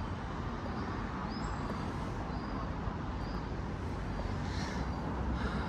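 Town street ambience: a steady hum of distant road traffic, with faint short high chirps now and then.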